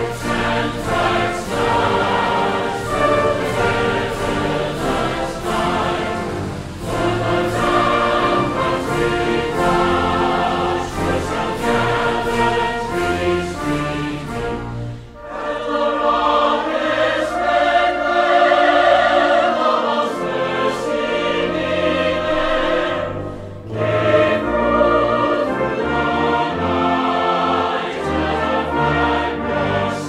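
A choir singing with orchestral accompaniment. The music thins briefly about halfway through and again a few seconds later.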